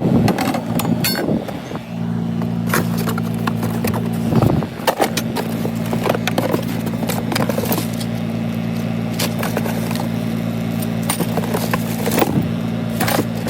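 A steady low mechanical hum with frequent clicks and scrapes over it.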